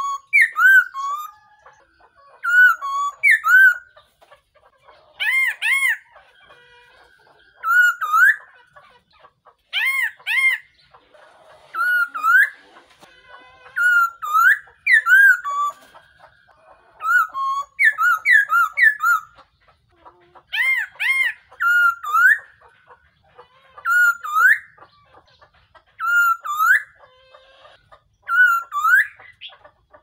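Black-throated laughingthrush singing: short phrases of clear, whistled notes that rise and fall, repeated about every two seconds.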